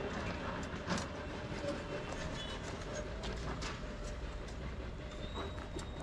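Steady low rumble of road traffic, with a few light knocks and clicks scattered through it.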